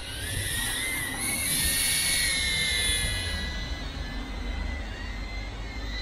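Small quadcopter drone in flight: a steady high motor-and-propeller whine that drifts slightly up and down in pitch with throttle, over a low rumble.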